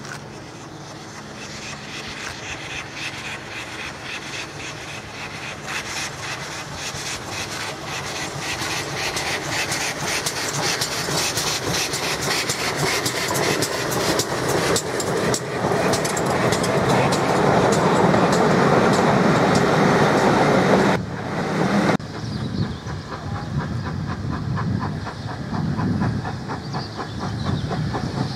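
GWR 28xx 2-8-0 steam locomotive no. 2857 approaching and passing with a train of coaches, its rhythmic clicking and rumble growing steadily louder to a peak. About three-quarters through the sound breaks off suddenly and a quieter train sound carries on.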